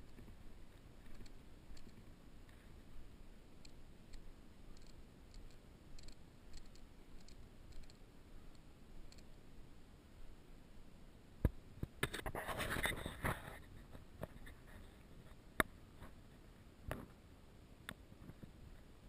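Faint camera handling noise: scattered sharp clicks and a brief rustling scrape about twelve seconds in, over a low background.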